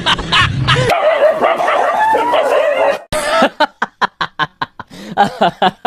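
A dog yelping and whining as it runs off in fright. After a sudden cut about three seconds in comes a quick, regular run of short sharp sounds, about five a second.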